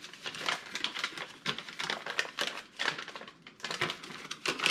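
Mailer packaging being handled and pulled apart by hand: a quick, irregular run of crackles, clicks and rustles.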